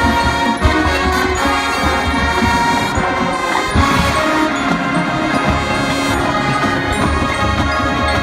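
Marching band playing a brass-led piece in full ensemble.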